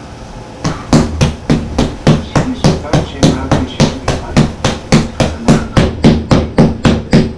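Fast, even string of punches landing on a QuietPunch doorway-mounted punching bag, about three to four hits a second, starting under a second in.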